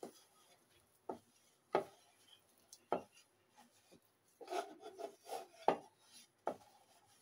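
A hand mixing and pressing a crumbly flour-and-semolina dough in a plastic bowl: irregular soft knocks of the hand against the bowl, a quick run of them near the middle, with faint rubbing and scraping of the dry crumbs in between.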